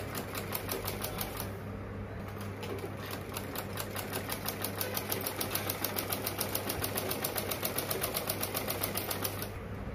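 Usha sewing machine stitching fabric with a rapid, even clatter of the needle mechanism. It eases off briefly about two seconds in, then runs steadily and stops just before the end.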